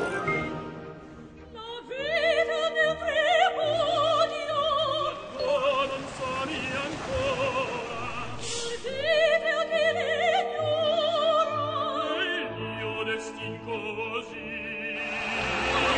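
Operatic voice singing with a wide vibrato over orchestral backing music. The voice comes in about two seconds in and breaks off briefly about halfway before going on.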